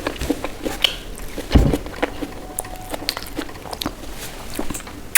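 Mouth sounds of a person eating a dal, rice and mashed-potato meal: soft wet chewing with many small clicks. There is a single louder, low thump about a second and a half in.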